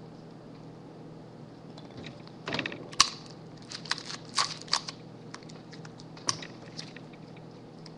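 Clear sticky tape pulled from a desk tape dispenser and torn off, with the crackle and click of plastic drinking straws being handled: a run of sharp crackles and clicks, the loudest a sharp snap about three seconds in.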